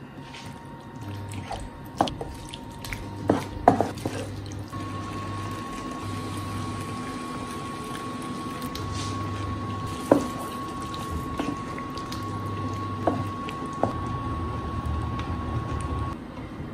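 Cream and boiled water poured into a frying pan of turkey and vegetables, the sauce stirred with a wooden spatula that knocks sharply against the pan several times.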